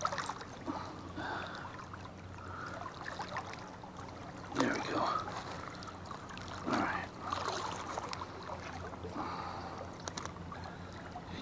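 Water sloshing and splashing beside a boat as a walleye is handled at the surface to be unhooked, with two louder splashes about halfway through, over a steady low hum.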